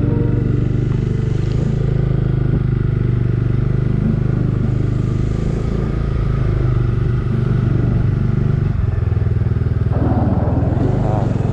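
Motorcycle engine running steadily while being ridden along the road.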